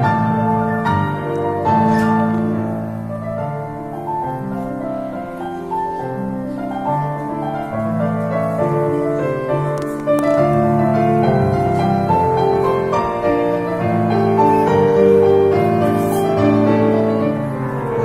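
Electronic keyboard played with a piano sound: a melody over chords.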